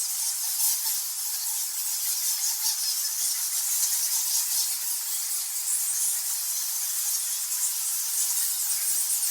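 Thousands of nectar bats roosting in a cave, a dense, constant chorus of high-pitched squeaks and screeches.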